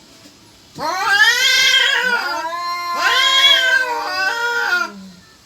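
Domestic cats caterwauling: two long, drawn-out yowls that waver in pitch, one starting about a second in and the next about three seconds in. This is the kind of standoff yowling cats make before a fight or when calling to mate.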